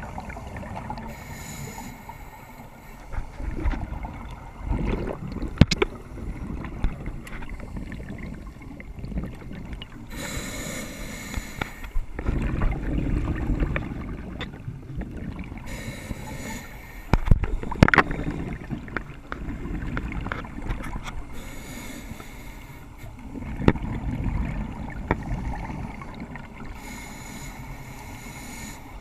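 Scuba breathing heard underwater through a camera housing. A high hiss comes five times, each about a second or two long, as the regulator is drawn on, and a low bubbling rumble of exhaled air follows each one. A few sharp knocks come in between.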